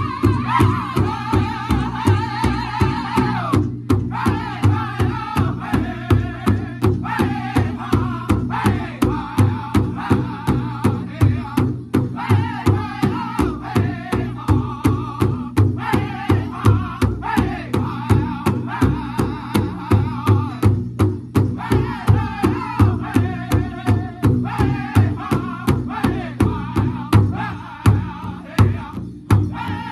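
A powwow drum group singing an intertribal song together while striking one large shared drum in a steady beat of about two strokes a second.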